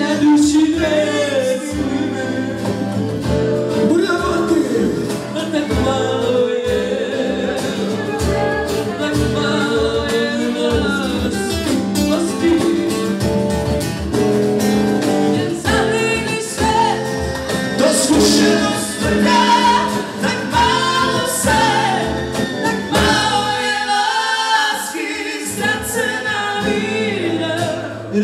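Live acoustic band playing: several acoustic guitars strumming a steady rhythm under a sung melody.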